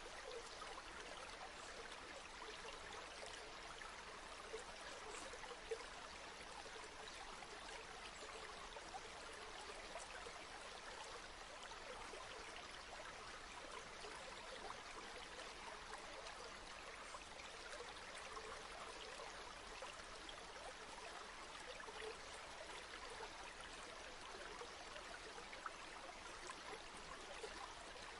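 A river flowing, a steady soft rush of water with small scattered splashes.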